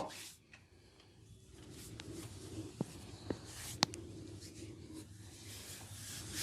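Hands rubbing and scratching through hair and scalp during a head massage, with three sharp cracks about half a second apart a little under three seconds in.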